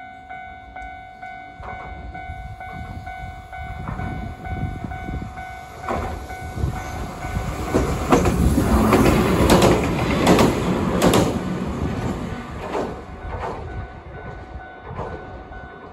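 A train passing close by: its running noise builds up, is loudest in the middle, then fades, with wheels clacking over rail joints as it goes by.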